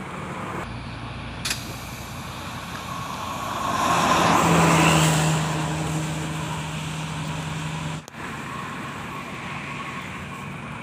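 A bus passes close by: engine and road noise swell to their loudest about four to five seconds in, then fade, with a steady low hum. The sound cuts off abruptly about eight seconds in, then steady traffic noise continues.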